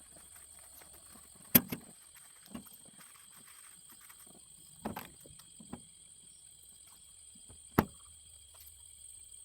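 Scattered sharp knocks and clanks of hand work on a garden tractor's wheel. Three loud knocks stand out, about three seconds apart, over a steady high chirring of insects.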